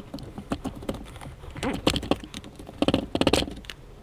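Irregular clicking and clattering from battery pack parts handled by hand, with two louder bursts of rasping clatter about halfway and about three seconds in.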